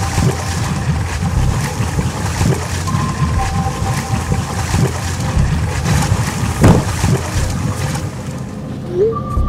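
Speedboat engine running with a deep, rough low rumble and water rushing past the hull, with a louder surge about two-thirds of the way in.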